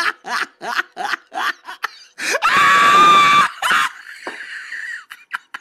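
A person laughing in quick bursts, about four or five a second, then letting out a loud, high-pitched shriek about two and a half seconds in that holds steady for about a second before trailing off.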